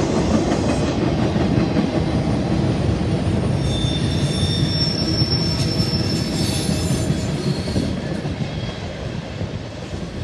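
CSX freight train's tank cars rolling over a steel girder rail bridge: a steady rumble and clatter of wheels, with a brief high wheel squeal in the middle. The sound fades over the last couple of seconds.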